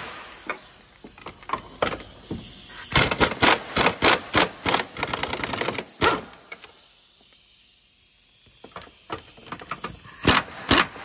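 Hand ratchet clicking in quick runs as an engine mount bolt is loosened, pausing for a couple of seconds before a few more runs near the end.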